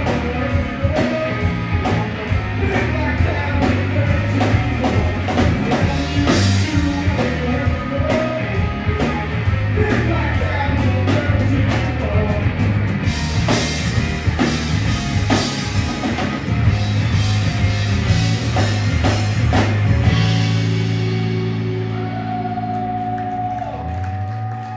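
Live blues-rock trio of electric guitar, electric bass and drum kit playing the close of a song. About twenty seconds in, the drums stop and a final held chord rings out and fades.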